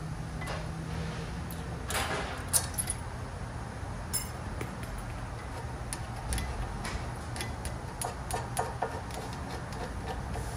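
Metal hand tools and brake parts being handled: scattered clicks and clinks, with a sharp clank about two and a half seconds in and a run of light taps from about six to nine seconds, over a steady low hum.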